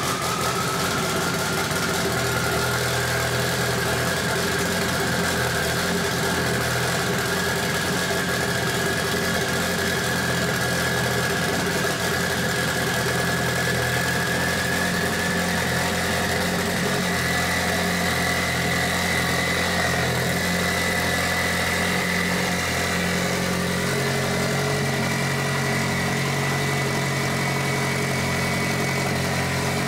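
Freshly rebuilt Mitsubishi 4G63T turbocharged four-cylinder running at a steady idle on its first start after the rebuild. A high whine over the engine note slowly rises in pitch.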